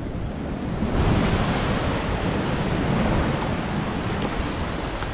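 Ocean surf surging and breaking against the rocks below, a wash of noise that swells about a second in and eases near the end, with some wind on the microphone.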